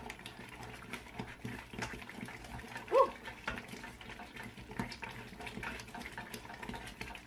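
Wooden spoon stirring thick batter in a stainless steel pot: faint, irregular scraping and clicking against the pot. About three seconds in, a brief rising squeak or yelp is the loudest sound.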